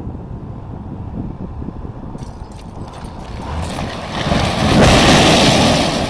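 A concrete silo, its base notched out, giving way and crashing to the ground: a low rumble swells into a loud crash of falling concrete about four seconds in, loudest near the end. Low wind noise on the microphone before it.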